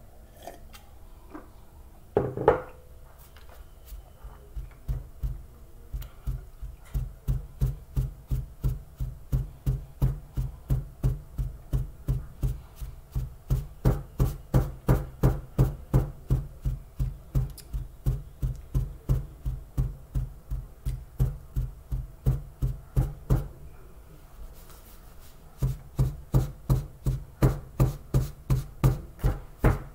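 A small paper carton packed with tapioca starch being tapped firmly, over and over, to pack the powder down, about three dull thuds a second. The tapping pauses for a couple of seconds near the end, then starts again. A single sharper knock comes about two seconds in.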